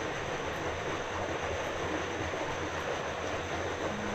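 A 1/18-scale RC rock crawler's small electric motor and geared drivetrain running under load as it climbs a rock ledge, a steady whirring noise with no clear change.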